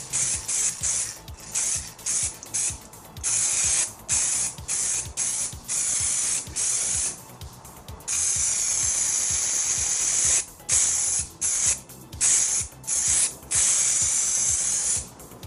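Aerosol spray paint can hissing as paint is sprayed in a run of short bursts, with one longer spray of about two seconds around the middle.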